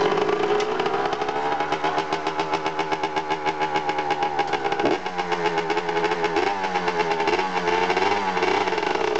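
Honda CR125 two-stroke dirt bike engine running just after starting. It idles with a fast, even popping beat and small throttle blips, and dips briefly about halfway before picking up again.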